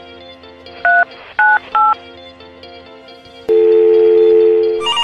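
Three short two-tone telephone keypad beeps as the number 125 is dialed on a smartphone, then about 3.5 s in a long steady two-tone phone line tone. Soft background music plays underneath.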